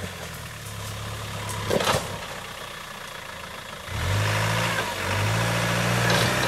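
Off-road 4x4's engine running low, with a sharp knock about two seconds in, then revving up about four seconds in and held under load as the truck climbs a steep dirt bank.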